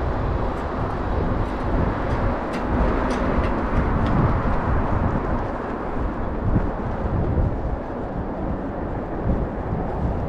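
Steady city traffic noise from a wide multi-lane road.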